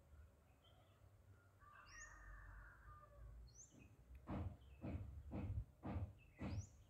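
Faint bird chirps, short high sweeping calls, three of them. About four seconds in, footsteps on a sandy path begin, roughly two steps a second, and they are the loudest sound.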